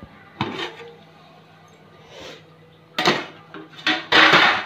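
A steel lid knocking and scraping against a steel cooking pot as it is taken off: a few separate clinks, then a louder rasping scrape near the end.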